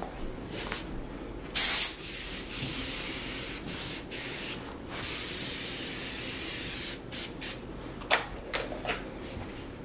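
Aerosol can of foaming glass cleaner spraying onto a glass tabletop: a short, loud blast about a second and a half in, then a longer, quieter spray lasting a few seconds. A few light knocks come near the end.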